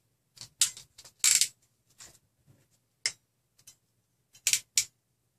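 Hand crimping tool clicking and snapping as crimp terminals are pressed onto wire ends: a handful of sharp, irregular clicks, with a close pair near the end.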